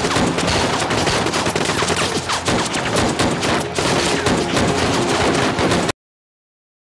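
Dense small-arms battle gunfire: rapid, overlapping rifle and pistol shots in a continuous fusillade, cutting off abruptly near the end.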